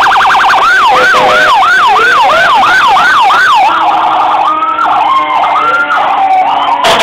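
Loud electronic emergency-vehicle siren: a rapid yelp that switches about half a second in to a slower rise-and-fall sweep, about two and a half a second. Partway through it changes to a choppier pattern of held, stepping tones with a low steady hum beneath.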